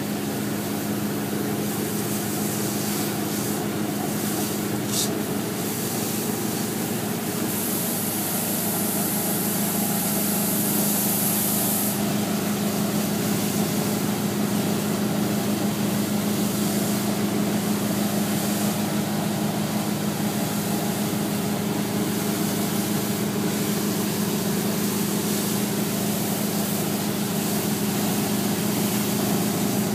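Pressure washer engine running steadily with a hissing spray of water as the moss on brick pavers is pre-treated. The spray hiss grows louder for a few seconds about a quarter of the way in.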